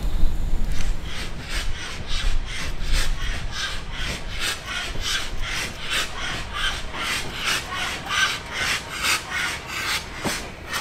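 Exhaust beats of BR Standard Class 2 2-6-0 steam locomotive 78019 working along the line, an even chuffing of about three beats a second. One sharp knock near the end.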